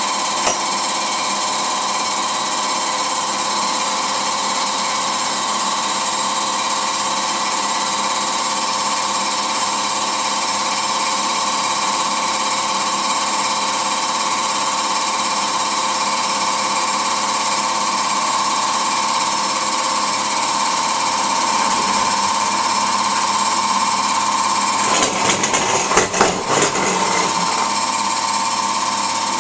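Air compressor running steadily to feed a paint spray gun, a constant mechanical hum with hiss. Near the end comes a brief cluster of irregular knocks and rattles.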